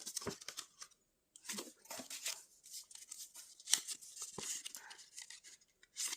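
An album's packaging and paper contents being handled and opened by hand: irregular rustling and crinkling with scattered sharp clicks, the sharpest about three and a half seconds in.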